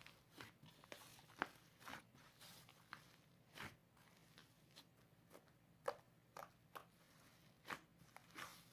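Cloud slime being squeezed and stretched by hand: faint, scattered crackles and small pops, a few sharper ones standing out.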